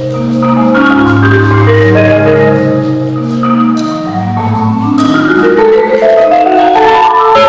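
Tuned mallet-percussion music: low rolled notes under a higher line, then a run of notes climbing steadily in pitch through the second half.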